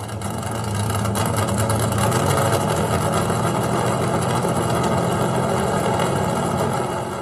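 An engine running at a steady pitch, fading in over about the first second and easing off slightly near the end.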